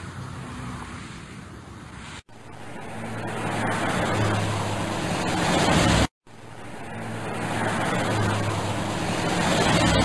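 Car sound effect: a car's engine and tyre noise approaching, in three spliced sections split by two abrupt cut-outs, the later two each growing louder as the car draws near.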